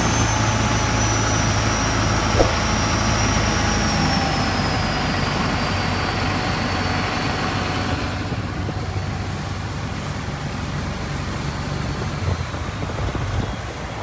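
Cummins QSB 6.7 inline-six turbodiesel running a speedboat, with a high turbo whine that falls slowly in pitch over the first eight seconds as the engine eases off. The rush of water and wind fades at the same time, leaving a steadier, lower engine hum.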